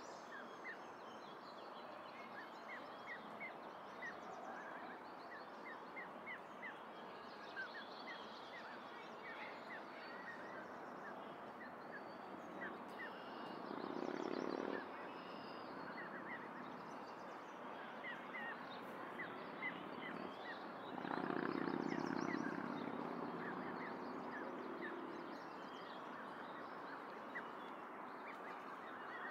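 Geese calling twice, a short call near the middle and a longer bout about three-quarters in, over steady high chirping of small birds.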